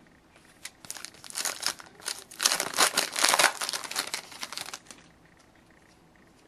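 Foil wrapper of a hockey trading-card pack being torn open and crinkled, a dense crackling that stops about five seconds in.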